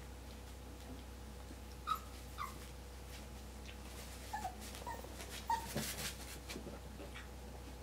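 Whippet puppy whimpering in short, high squeaks: two about two seconds in, then a cluster a couple of seconds later. Light crinkling clicks from the plastic puppy pads under its paws come in between.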